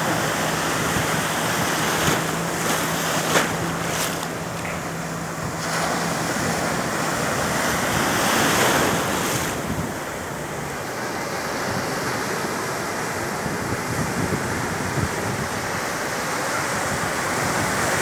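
Sea surf breaking and washing up the beach: a continuous rush of foaming water that swells as each wave breaks, loudest about eight seconds in and again near the end.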